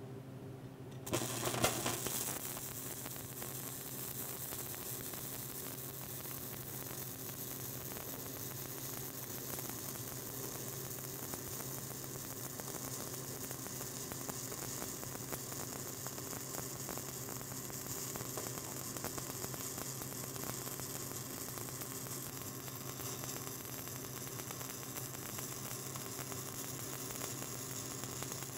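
Stick (shielded metal arc) welding with a 3/32-inch 7018 rod at about 85–90 amps, laying a hot pass in a groove joint. The arc strikes about a second in and then burns steadily with a fine crackle over a low, steady hum.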